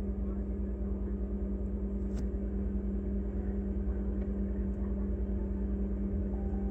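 Refrigerator running, heard from inside the fridge: a steady hum with a low, fluttering rumble, and one sharp click about two seconds in.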